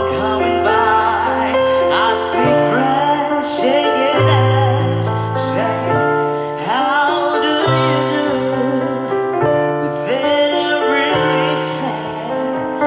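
Live pop ballad performance: a male singer's sustained, wavering vocal runs over held keyboard and piano chords with deep bass notes.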